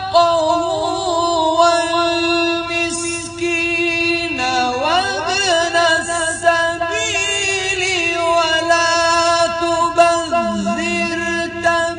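Male voice in melodic Quran recitation (tajwid), drawing out long held notes with ornamented turns and pitch slides, rising in the middle and dropping lower near the end.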